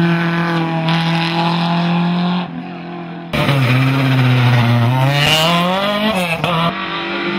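Hillclimb race car engines at full throttle. First one engine is held steady at high revs. Then a Renault Clio race car passes close, its engine note dipping and then climbing in pitch as it accelerates away. A steady engine tone returns near the end.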